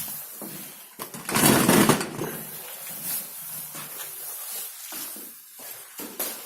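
Footsteps and scuffing in a stairwell, with one loud scrape or rustle about a second and a half in, then scattered light knocks.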